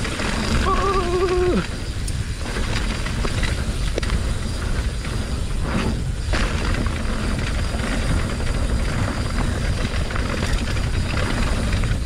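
Riding noise from a steel hardtail mountain bike descending a rough, wet trail: wind on the microphone, with tyre rumble and rattle over the bumps. About a second in comes a brief wavering tone that dips as it ends.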